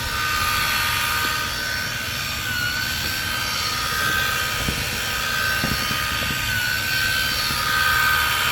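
Electric stone polisher running steadily on a terrazzo wall: a steady high motor whine that wavers slightly in pitch, over a constant hiss.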